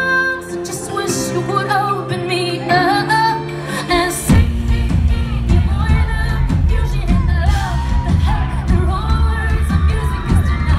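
A woman singing a pop ballad live over sustained keyboard chords; about four seconds in the full band with drums comes in under her voice.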